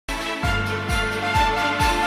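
Background music with a steady beat, about two beats a second, under held melody notes.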